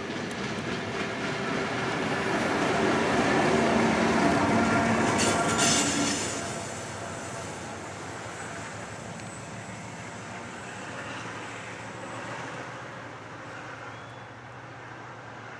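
Two diesel locomotives, ex-SAR 830 class Alco 872 and 8030, running light engine past: engine drone and wheels on the rails swell to their loudest about three to six seconds in, with a brief high screech near the peak, then fade as the locomotives move away.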